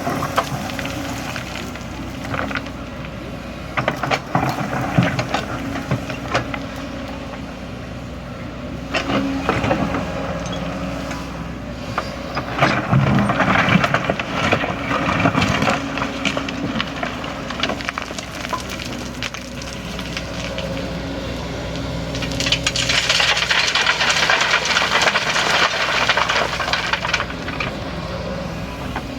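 Kobelco excavator's diesel engine running steadily under repeated knocks and metallic clanks and rattles as the machine works. There are two louder stretches of rasping rattle, about halfway through and again near the end.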